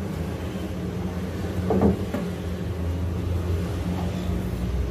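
Steady low rumble of a lit gas stove burner under a steel pot of heating oil, with one brief knock about two seconds in.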